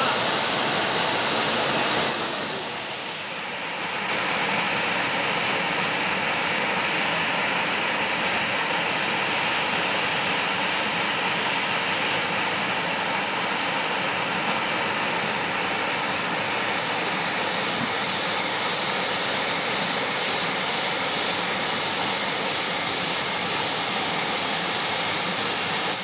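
Waterfall pouring into a rock pool: a steady rushing of water, dipping briefly about two seconds in.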